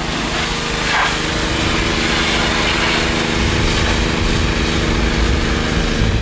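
Gas pressure washer (3,300 PSI, 2.4 gallons a minute) running steadily under load, its small engine humming under the hiss of the high-pressure water jet blasting mud off the side-by-side's body.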